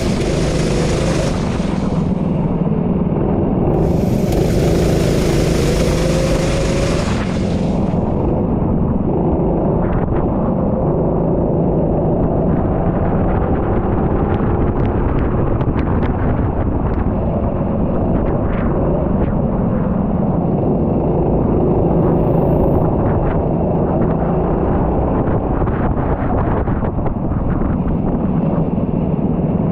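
Racing kart engine running at speed on the circuit, heard onboard, with gusts of wind noise hitting the microphone for the first couple of seconds and again from about four to seven seconds in.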